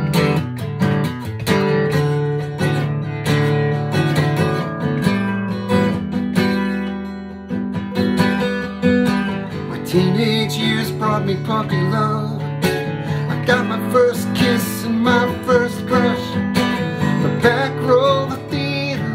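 Acoustic guitar strummed steadily as a song intro, with a man's voice coming in singing about halfway through.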